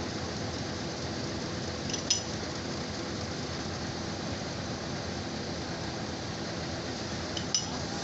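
Two sharp metallic clinks, one about two seconds in and one near the end, from steel recovery rigging being handled on a wrecked truck cab, over a steady background noise.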